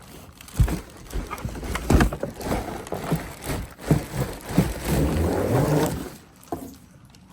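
Cardboard box and packaging being handled as a vacuum cleaner is pulled out: irregular knocks and thumps with rustling and scraping, quieter near the end.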